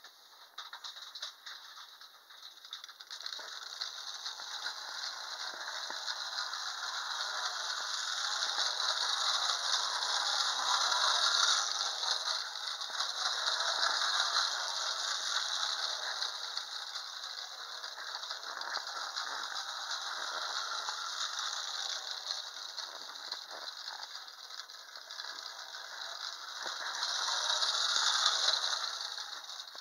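Clockwork wind-up tin toy, a Santa Claus figure on a tricycle, running across a wooden tabletop: its spring-driven mechanism and wheels make a steady, fine rattle. The rattle grows louder over the first few seconds and swells again near the end.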